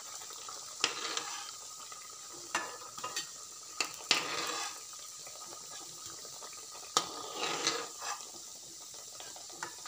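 Hot oil sizzling in a metal kadhai as biscuits deep-fry. A perforated metal spatula clinks and scrapes against the pan about six times as the fried biscuits are lifted out, stirring up brief flurries of sizzle.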